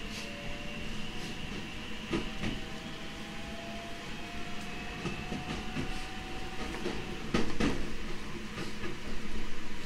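JR Central 313 series 2500-subseries electric train running, its motor whine rising slowly in pitch as it gathers speed. Wheels clatter over rail joints, with the loudest knocks about seven and a half seconds in.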